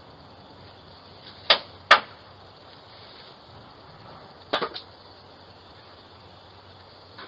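Two sharp knocks about half a second apart, then a quick cluster of three more knocks about three seconds later, over a faint steady hiss.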